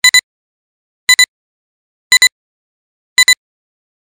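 Film-leader countdown beeps: a short, high electronic double blip once a second, four times, with dead silence between.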